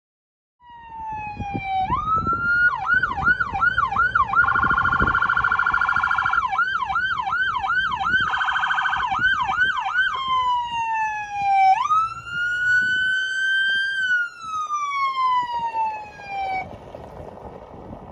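Whelen Cencom Core electronic siren on a Ford F-150 police responder cycling through its tones: a falling tone, then quick yelp sweeps about three a second alternating with a rapid piercing warble, then a long wail that rises slowly and falls before cutting off near the end.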